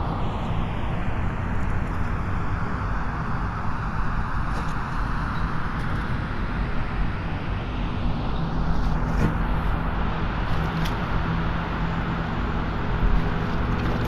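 Car traffic in the rain: a steady hiss of tyres on a wet road and rainfall over a low engine hum.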